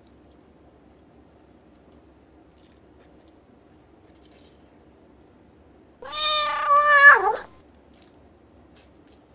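A cat meowing once: one loud, drawn-out call of about a second and a half that holds its pitch and then drops sharply at the end.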